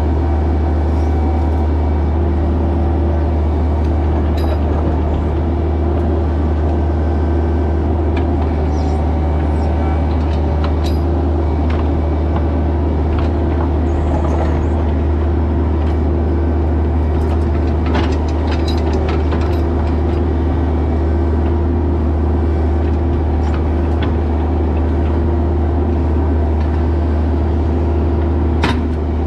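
Bobcat E26 mini excavator's diesel engine running steadily under load, heard from the cab, while the hydraulics work the boom and bucket to backfill a trench. Scattered clanks and knocks of the bucket and stones come through it, with a sharp one near the end.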